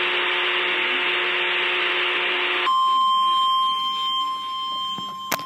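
Emergency Alert System alert on a weather radio broadcast: a harsh, loud buzzing data-like burst for the first half, then it switches to a single steady pure tone, the warning alarm tone that comes before a severe thunderstorm warning message. A sharp click near the end.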